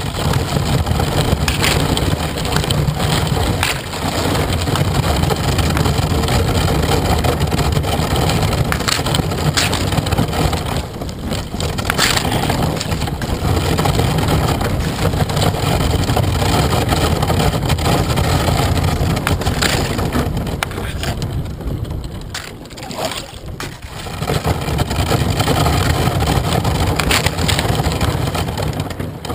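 The plastic hull of an Old Town Vapor 12XT kayak crunching and scraping through thin skim ice: a continuous grinding rumble with sharp cracks of breaking ice now and then. It eases off briefly twice, about a third of the way in and again past two-thirds.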